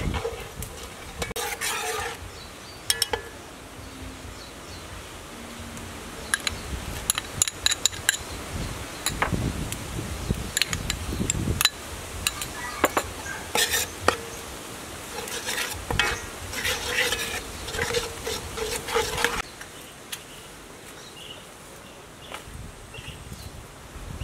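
A metal spoon stirring and scraping in an aluminium pot of broth, with repeated sharp clinks against the pot. The clinking stops a few seconds before the end.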